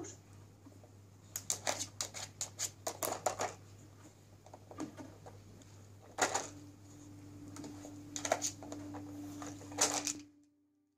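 Hard plastic clicking and rattling of a Nina Ottosson Dog Casino puzzle toy as a dog works its drawers with nose and teeth: a quick run of clicks, then a few single louder clicks, over a faint low hum. The sound cuts off near the end.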